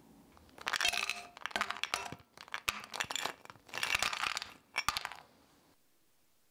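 Caramel candy cubes tipped from a ceramic bowl into a saucepan. They clatter and clink against the pan in several rattling runs over about four and a half seconds, then stop.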